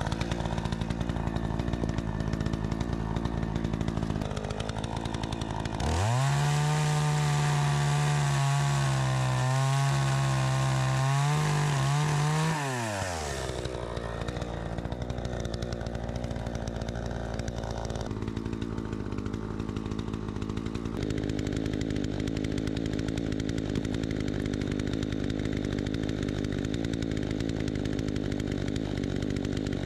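Troy-Bilt 20-inch two-stroke chainsaw, its carburetor freshly adjusted, idling, then revved up to high speed about six seconds in and held there for about seven seconds with a few brief dips in pitch, before dropping back to a steady idle.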